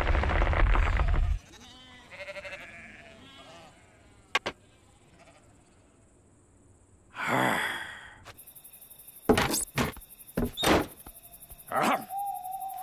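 Cartoon sound effects: a loud bleating call that stops about a second and a half in, then a run of sharp knocks and thuds in the last few seconds.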